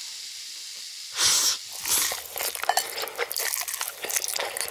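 Close-miked mukbang eating sounds: two loud slurps of noodles about a second and two seconds in, then a dense run of chewing and smacking clicks.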